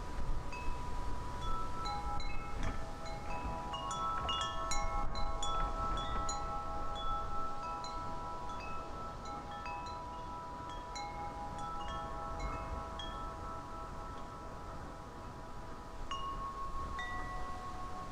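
Wind chimes ringing in the breeze, struck irregularly. Their tones hold and overlap, and the strikes come thickest in the first half. Wind rumbles on the microphone underneath.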